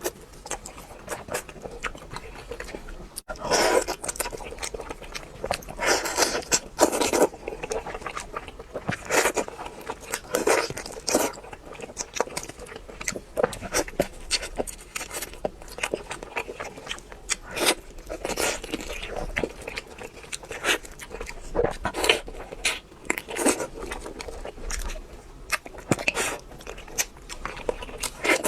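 Person biting and chewing crispy fried food, with loud, irregular crunches and crackles in clusters.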